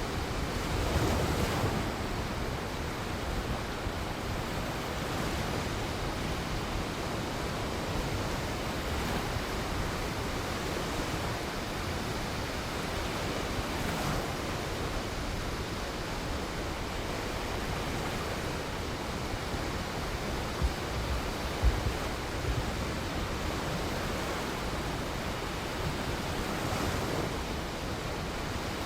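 Shoreline ambience: waves washing onto the shore as a steady rush that swells now and then, with two short low thumps about two-thirds of the way through.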